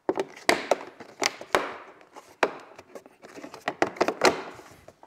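Plastic motorcycle body panel being forced back into place by hand: a string of sharp clicks and knocks as the plastic bumps and snaps into its mounts, with brief scraping in between.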